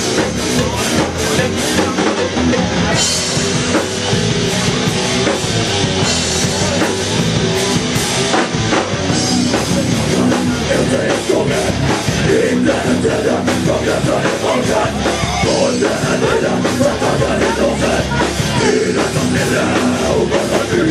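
Live heavy metal band playing loud and steady: electric guitars over a driving drum kit.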